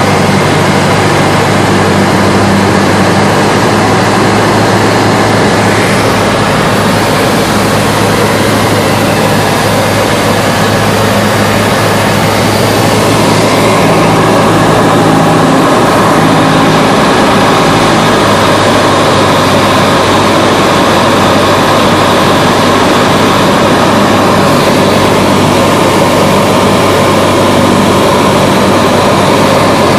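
Cessna 172's piston engine and propeller heard inside the cockpit in flight: a loud, steady drone over a hiss of rushing air, a little louder from about halfway through.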